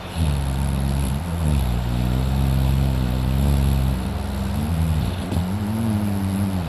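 A man asleep snoring: a long, low, droning snore whose pitch wavers, with brief dips about a second in and again near the end.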